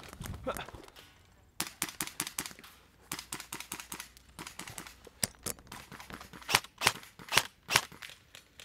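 Airsoft rifles firing: a string of sharp clacks at irregular spacing, several a second, starting about a second and a half in, with the loudest shots near the end.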